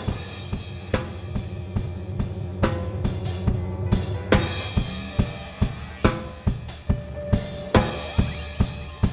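Live band music led by a drum kit playing a steady beat of kick, snare and cymbals, over sustained bass and keyboard notes.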